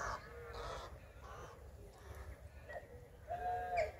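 Asian small-clawed otters calling: a series of short, high-pitched calls, with a longer, louder call near the end.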